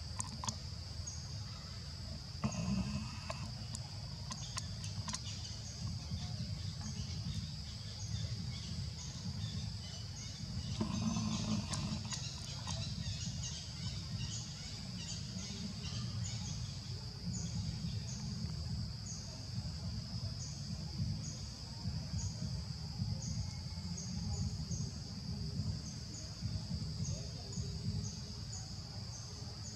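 A steady high-pitched insect drone with a short chirp repeating about once a second, over a low rumbling background noise. A couple of brief louder sounds come about three seconds in and again about eleven seconds in.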